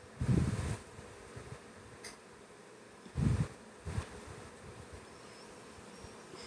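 Potato chunks dropped into an aluminium pressure cooker onto raw beef pieces: two dull thuds about three seconds apart, with a softer one just after the second, over a steady faint hiss.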